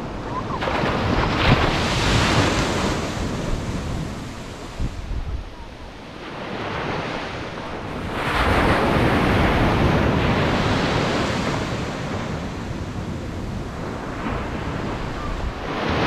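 Atlantic Ocean surf breaking on a sandy beach: small waves crash and wash up the shore in swells that rise and fall, the loudest about eight to twelve seconds in, with a lull around five seconds in.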